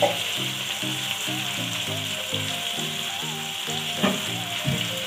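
Onion, tomato and spice mixture sizzling steadily in hot oil in a wok, with a couple of sharp metal spatula knocks against the pan, the strongest right at the start and about four seconds in. Soft background music plays underneath.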